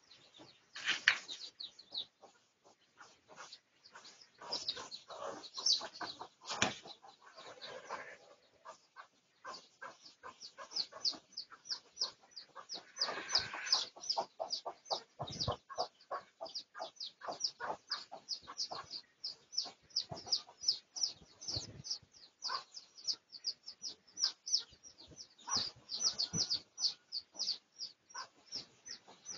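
Red junglefowl in a pen: a few short flurries of wing flapping and some low clucks. From about a third of the way in, rapid high chirps repeat about three to four times a second.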